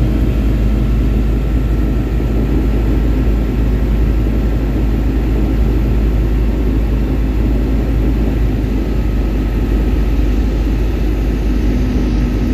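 Tecnam P2002's Rotax 912 flat-four engine and propeller droning steadily in the cockpit during the approach, with a faint steady high whine over it.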